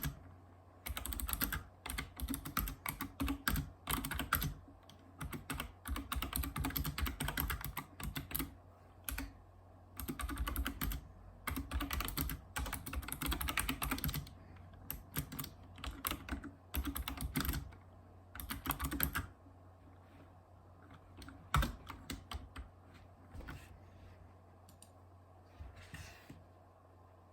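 Typing on a Razer Ornata Chroma mecha-membrane keyboard: rapid runs of key clicks in bursts separated by short pauses. In the last third it thins to scattered single keystrokes.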